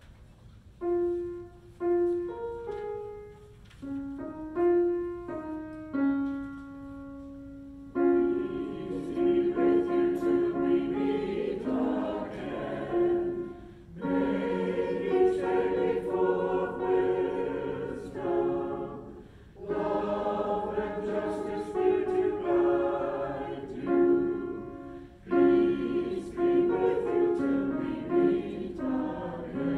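A choir singing in harmony with piano. A short introduction of single piano notes comes first, then the voices come in about eight seconds in, pausing briefly between phrases.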